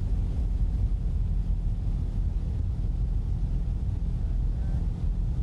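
Motorboat engine running steadily with a low, even rumble.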